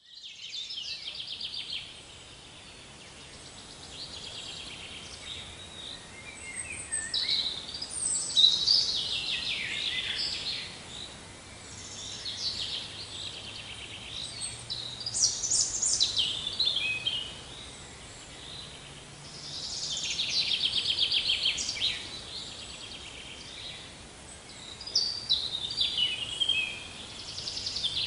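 Birds singing: repeated high chirps and rapid trilled phrases, one after another every few seconds, over a faint low background.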